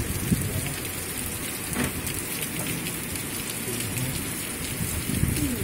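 Steady rain falling and splashing into shallow floodwater covering the ground.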